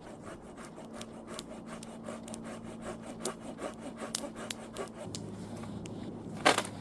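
Hand saw cutting through a thick green tree trunk for firewood: steady, rhythmic rasping strokes of the blade through the wood, with one sharp, louder knock near the end.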